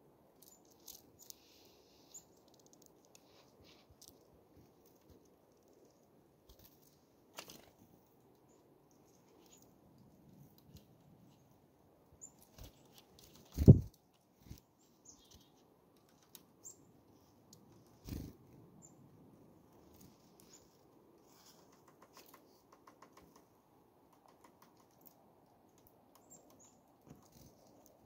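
Black-capped chickadees visiting a seed-filled hand: faint high chirps and ticks scattered throughout, with small wing flutters. A loud low thump comes about halfway through and a smaller one a few seconds later.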